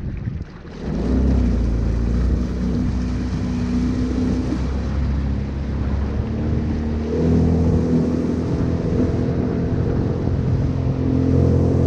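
Jet ski engine running hard as the craft speeds across the water, with the hiss of spray from the hull and wake. It picks up sharply about a second in and revs higher again about seven seconds in.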